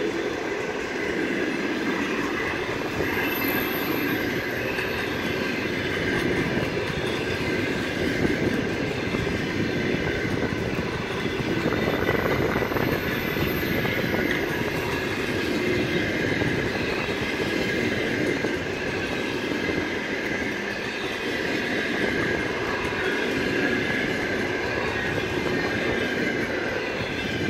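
Long passenger train's coaches rolling past at speed: a steady rumble and clatter of wheels on rail joints, with a thin high ringing from wheels and rails over it.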